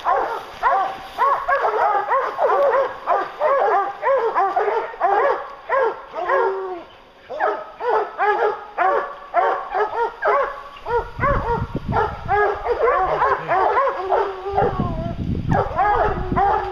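A pack of English hounds barking and baying without pause, many voices overlapping: the tree bark of hounds holding a black bear up a tree. A low rumble joins them from about eleven seconds in.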